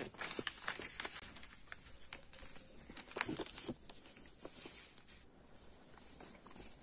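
Sheets of paper rustling and crinkling as a page is turned over and pressed flat by hand, with scattered faint ticks, busiest early and again a little past the middle, then dying away.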